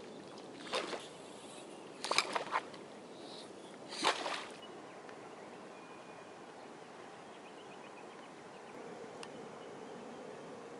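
Shallow water sloshing and splashing in three short bursts, about a second, two seconds and four seconds in, over a faint steady background.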